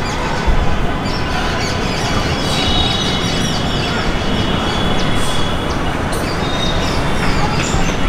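Many birds chirping and calling all at once over a loud, steady rumbling background noise.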